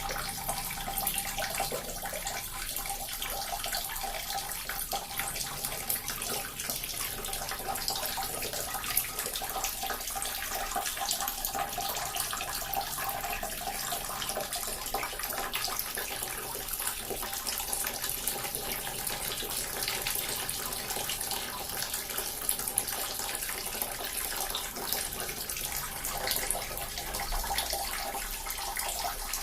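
Small water fountain running steadily, water splashing and trickling continuously.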